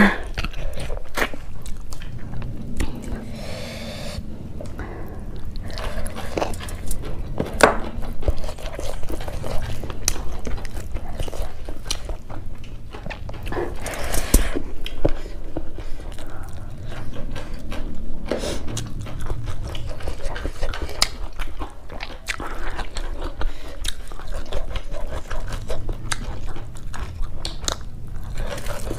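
Two people chewing mouthfuls of rice and beef innards curry eaten by hand, with many irregular clicks of lips and mouth.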